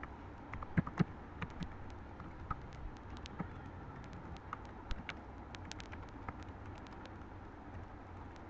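Computer keyboard keys clicking in irregular quick runs of typing, the loudest keystrokes about a second in, over a steady low hum.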